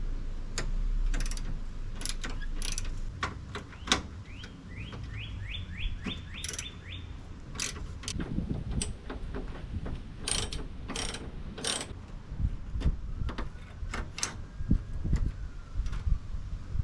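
Socket ratchet clicking as 10 mm bolts are backed out, with a run of quick, even clicks about five seconds in, amid scattered clicks and knocks of tool handling.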